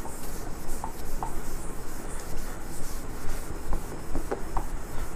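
Cloth rubbing back and forth over a whiteboard, wiping off marker writing, with a few short squeaks.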